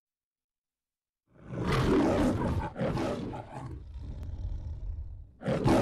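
The MGM lion logo's roar: after about a second of silence come two loud roars close together, then a lower, quieter growl, and another loud roar starting near the end.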